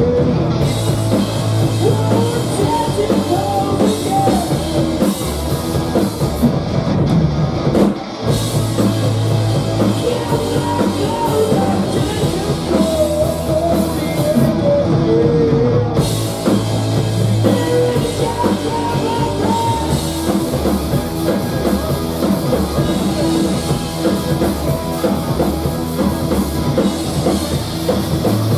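Live rock band playing loud and continuously: electric guitar, electric bass and drum kit, with a brief break in the sound about eight seconds in.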